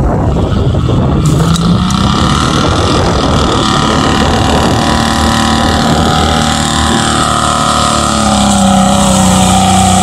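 Mud-bog SUV's engine held at high revs while its wheels churn through deep mud. The engine note climbs over the first couple of seconds, then holds steady, shifting pitch again near the end.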